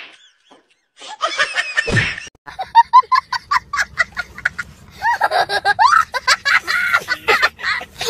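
A small child laughing hard in quick, repeated bursts, starting about three seconds in and running into longer laughs after about five seconds.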